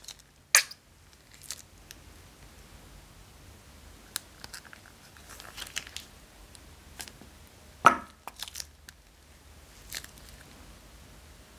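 Slime being squeezed out of plastic bags into a glass dish: soft plastic crinkling and small wet, sticky crackles. Two louder short squelches come about half a second in and about eight seconds in, the second with a brief squeaky tone.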